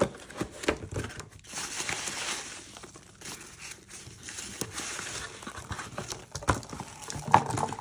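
Cardboard box being opened and hands rummaging through foam packing peanuts: rustling and crinkling of foam and cardboard, with a few sharp knocks as the box is handled.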